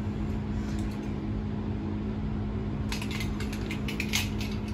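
Lift car travelling with a steady hum and low rumble. From about three seconds in, a short run of light metallic clicks and rattles.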